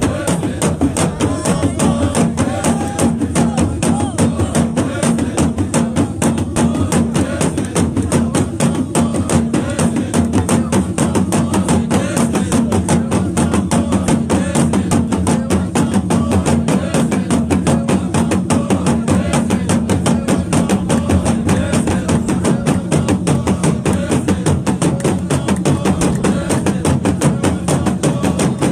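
Drums and hand percussion beating a fast, steady rhythm, with voices of a group underneath.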